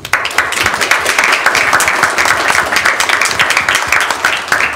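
Audience applauding: many hands clapping densely, starting suddenly at the close of a talk.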